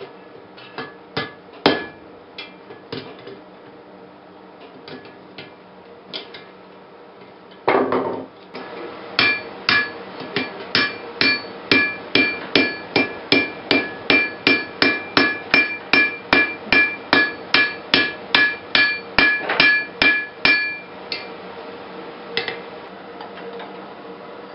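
Blacksmith's hammer striking on the anvil: a steady run of ringing blows, about two a second for some twelve seconds. Before it come a few scattered taps and knocks and a short burst of noise about eight seconds in, with a steady low hum underneath throughout.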